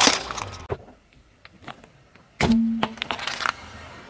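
Car tyre rolling onto and crushing a small plastic toy figure: one loud crack followed by smaller crackles as the plastic breaks. About two and a half seconds in comes another thump with a brief low hum, then a few light clicks.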